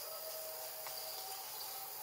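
Forest insects buzzing steadily in thin, high tones over an even hiss, with a faint click a little under a second in.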